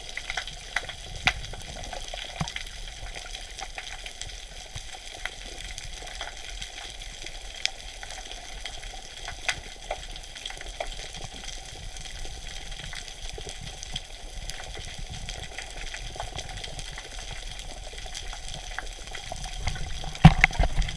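Underwater sea ambience picked up by a submerged camera: a steady hiss with scattered crackling clicks throughout, and a few louder knocks near the end.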